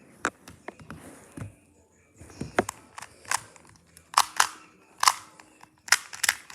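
Plastic 2x2 Rubik's cube being turned quickly by hand: irregular sharp clicks and clacks as the layers snap round, coming faster after about two seconds.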